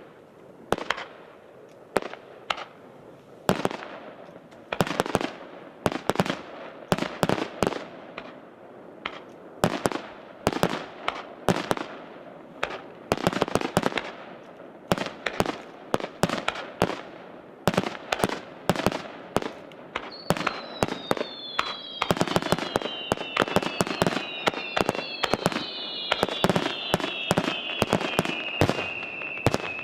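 Fireworks display: a rapid, irregular run of sharp aerial shell bangs, growing denser with a steady crackle about two-thirds of the way through. From about twenty seconds in, several whistles slide down in pitch together over the bangs.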